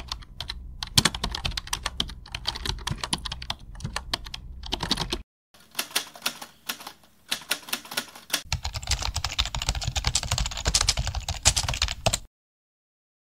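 Rapid computer-keyboard typing clicks, used as the sound effect for text being typed out on screen. They break off briefly about five seconds in and stop dead about a second before the end.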